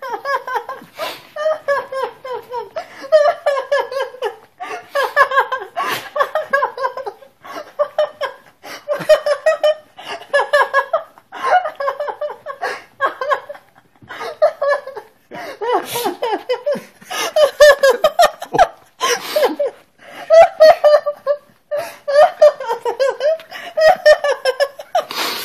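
A woman laughing in high-pitched fits, one run of laughs after another with short breaks for breath.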